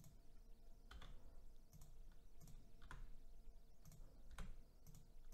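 Faint computer mouse and keyboard clicks, about eight of them at irregular intervals.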